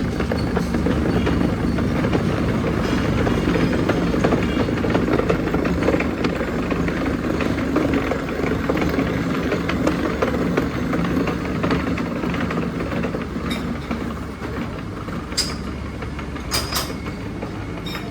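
Milling machine running, a steady mechanical rumble and hum that eases off about three-quarters of the way through, followed by a few sharp metallic clicks near the end.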